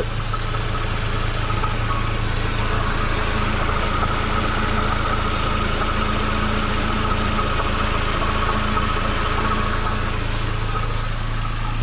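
Mazda Miata's DOHC four-cylinder engine idling steadily, heard close up at the front of the engine beside the timing belt covers. Any rattle from the worn timing-belt tensioner and idler pulley bearings is very subtle.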